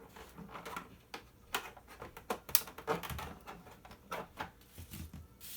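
Scattered sharp clicks and knocks of a Riccar vacuum cleaner's plastic housing being pried and worked apart by hand.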